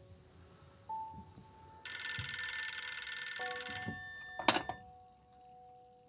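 Wall-mounted corded telephone's bell ringing in one trilling burst of about two seconds. A sharp knock follows as the handset is lifted off its hook.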